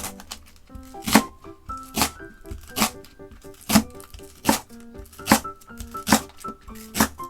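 Kitchen knife cutting food on a cutting board: about eight slow, evenly spaced chops, roughly one every 0.8 seconds, over background music.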